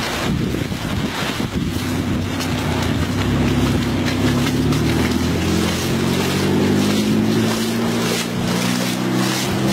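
Wind buffeting the microphone, then from about two seconds in a steady engine hum that grows slightly louder and holds with a gently shifting pitch.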